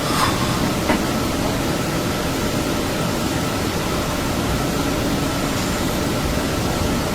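Steady hiss between a sleeping person's snores. A snore trails off at the very start, a small click comes about a second in, and a faint breath sounds near the end.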